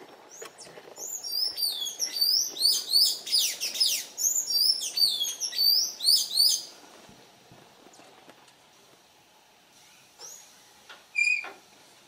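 Songbirds chirping: a fast run of high, squeaky notes, each sliding down in pitch, for about six seconds, then a pause and a few short calls near the end.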